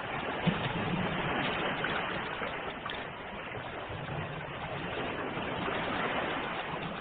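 Ocean waves washing in a steady rush that swells and eases gently, with a brief click about half a second in.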